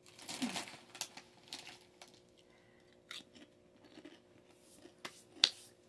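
Crinkly snack packaging being handled and rustled for about two seconds, followed by a few short sharp clicks.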